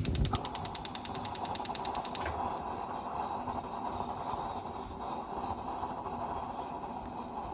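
A kitchen appliance: a fast, even run of ratcheting clicks for about two seconds, then a steady motor hum.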